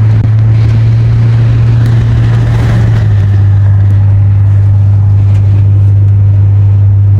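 Car cabin noise at freeway speed: a loud, steady low drone from the engine and road, with a rushing hiss over it. The drone drops slightly in pitch about three seconds in.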